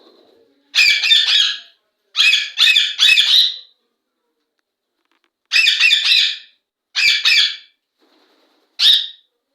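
Indian ringneck parrot giving loud, harsh squawks in five short bouts of two or three notes each, with short silences between.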